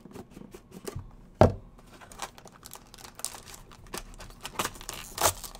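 Cardboard trading-card hobby box being opened by hand: small taps and rustling of the cardboard, a sharp knock about a second and a half in, then scraping as the inner box is slid out of its sleeve.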